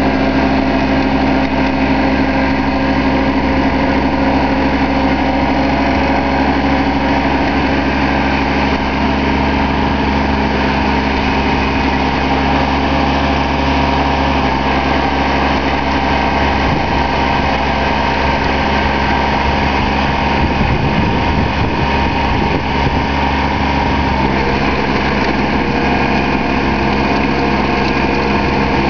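Compact tractor engine running steadily under load while it drives a rear rotary tiller through the soil. The engine note shifts slightly about three-quarters of the way through.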